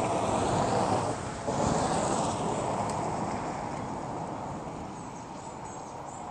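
Outdoor traffic noise: a steady rush from a passing vehicle, loudest at the start and fading slowly away.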